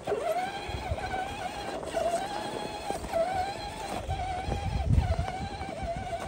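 Electric motor of a 1/10-scale RC crawler truck whining as it drives through snow, its pitch wavering and dipping at times. A low rumble comes about four to five seconds in.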